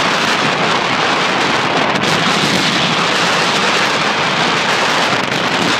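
Strong wind buffeting the microphone on the open deck of a moving ferry: a loud, steady rushing noise.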